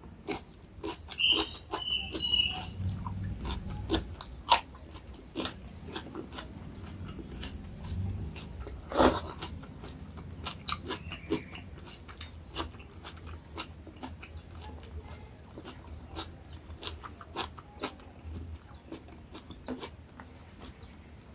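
Close-miked eating: irregular wet mouth clicks and chewing of rice and curry, with a few louder crunches.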